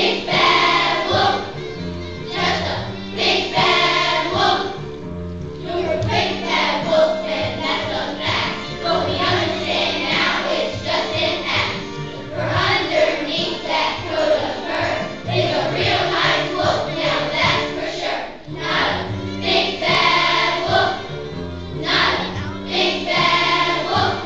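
Children's choir singing a song with instrumental accompaniment.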